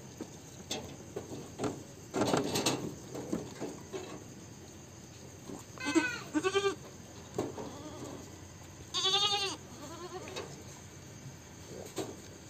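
Goats bleating: two short bleats about six seconds in, then one longer, wavering bleat a few seconds later. There is a short burst of rustling noise about two seconds in.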